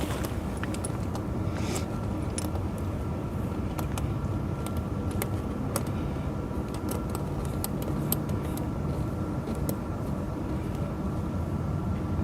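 Tractor engine idling steadily, with scattered light metallic clinks of tire-chain links being handled and hooked up.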